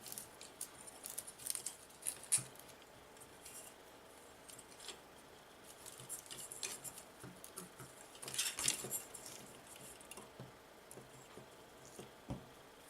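Small clicks, taps and light rattles of tiny drone parts and hardware being handled, in scattered clusters, with a duller knock near the end.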